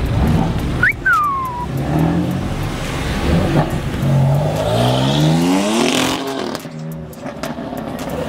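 BMW M3's engine revving hard as the car pulls away, its pitch climbing steeply for about two seconds before dropping off sharply around six seconds in. A short high squeal comes about a second in.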